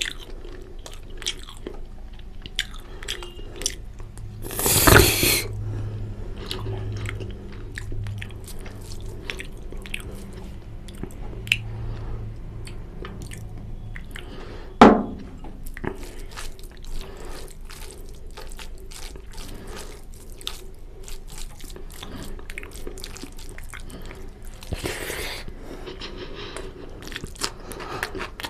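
Wet chewing and biting of mutton curry and rice, with constant small mouth clicks and smacks. A loud rushing burst lasts about a second around five seconds in, and a single sharp knock comes about halfway through.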